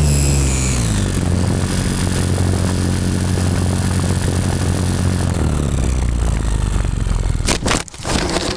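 Motor and propeller of a Super Cub RC model plane, heard from a camera on the airframe: the pitch drops as it throttles back in the first second, then it drones steadily at lower throttle. About seven and a half seconds in the motor stops and a few sharp knocks follow.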